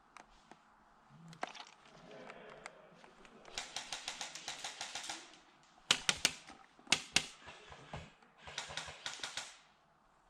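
Airsoft gunfire: two rapid clattering bursts of shots with a few louder, sharper single cracks between them.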